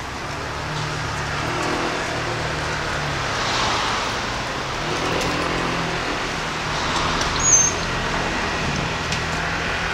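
Steady city street traffic: car engines running and vehicles passing, with a short high squeak about seven and a half seconds in.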